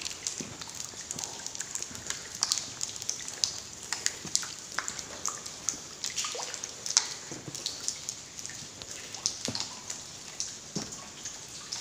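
Irregular drips and small clicks in a cave, like water dripping onto rock, mixed with steps on a wet, stony floor.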